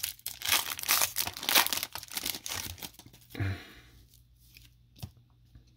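Shiny foil trading-card pack wrapper being torn open and crinkled by hand, a dense crackling for the first two and a half seconds, with one more short rustle about three and a half seconds in and then only a few faint clicks as the cards come out.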